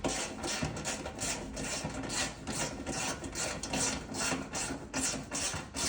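Ratchet wrench clicking in repeated rasping strokes, a few a second, as 10 mm bolts are run in to fasten a lawn tractor's side panel.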